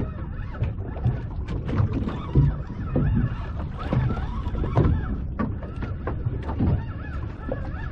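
Wind buffeting the microphone and choppy water slapping against a boat's hull, an uneven rumble with irregular knocks.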